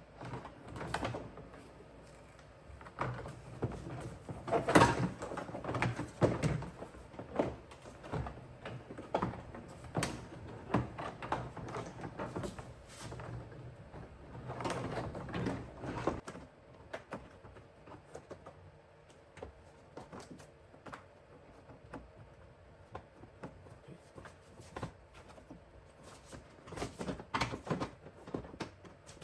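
Plastic interior trim panels on a Subaru Outback tailgate being handled and fitted: an irregular run of clicks, knocks and rattles as pieces are positioned and clipped in. The knocks are busiest and loudest in the first half, thin out, and pick up again near the end.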